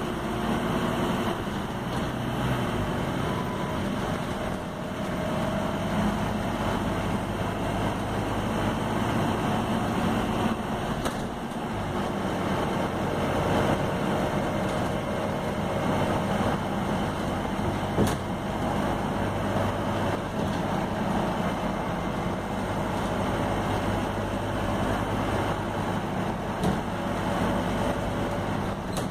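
Scania bus heard from inside the passenger saloon: its diesel engine runs steadily, its note rising and falling a little in the first few seconds, with one sharp knock partway through.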